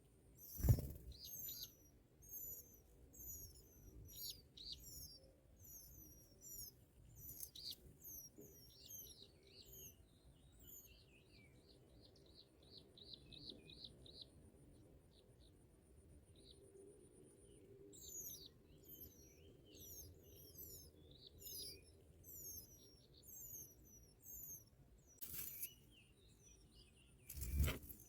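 Bar-winged prinias chirping: many short, high chirps, with a fast run of about eight chirps a second near the middle and a thin steady high whine underneath for several seconds. Two loud brief thumps, about a second in and near the end.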